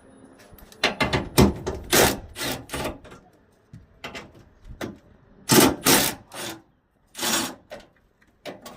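Hand tools and metal parts clanking and rattling in a truck's engine bay as the fuel pressure regulator is unbolted and taken off. There are a dozen or so sharp knocks and short scrapes at uneven intervals, the loudest about a second in, around two seconds in, and near the middle.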